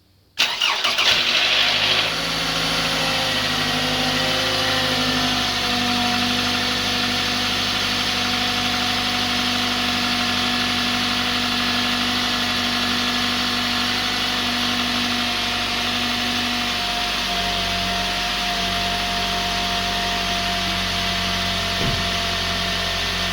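2010 Toyota Camry SE's 2.5-litre four-cylinder engine starting from cold about half a second in, loud for the first couple of seconds, then settling into a steady fast idle that steps down slightly after about seventeen seconds. The owner reports a knock/rattle noise on this cold start.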